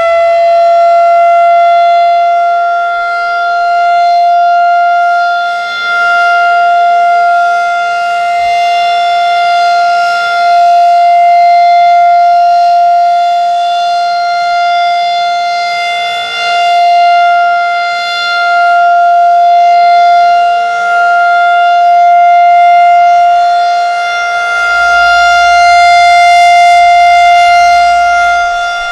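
Federal Signal 2001-DC roundback tornado siren sounding its steady alert tone. It finishes winding up about a second in and then holds one pitch. As the rotating siren head sweeps past, the tone swells and fades every several seconds.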